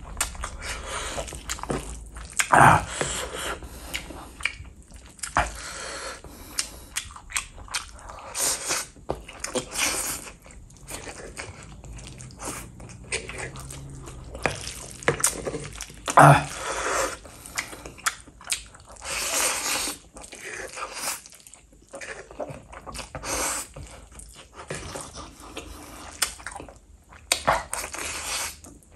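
A person eating Korean fire noodles: slurping and wet chewing in a dense run of short smacks and bursts, the loudest about 2.5 and 16 seconds in.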